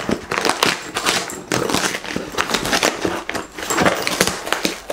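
Shipping packaging being opened by hand: dense, irregular rustling with many short, sharp handling noises in quick succession.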